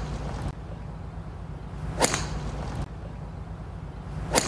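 Two sharp cracks of a driver striking a golf ball off the tee, about two seconds apart, over a steady low background hum.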